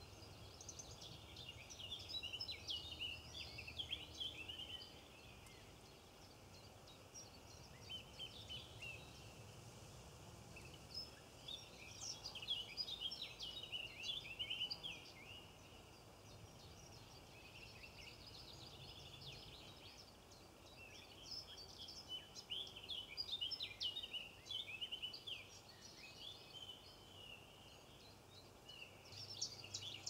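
Small songbirds singing: phrases of rapid high twittering notes, a few seconds each, with short pauses between them, fairly faint over a quiet outdoor background.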